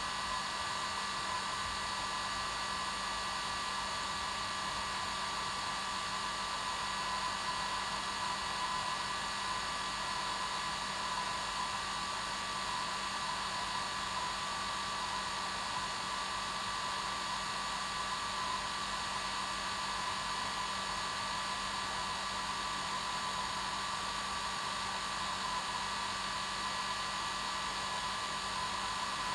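Hair dryer running steadily on its normal setting: a constant whooshing blow with a steady whine, unchanging throughout.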